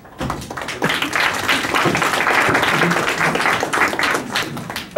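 Audience applauding, starting almost at once and dying down near the end.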